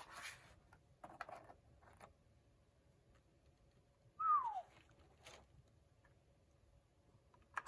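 Faint handling and rustling of a keyboard and its packaging, with one short squeak that falls in pitch about four seconds in.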